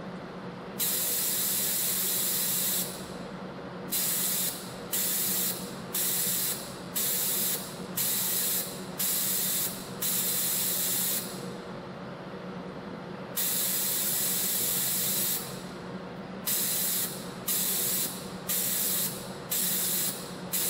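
YHM CF-303 CNC compression spring coiling machine running in repeated cycles: a hiss starts and stops about once a second, with two longer hissing stretches of about two seconds, over a steady low hum.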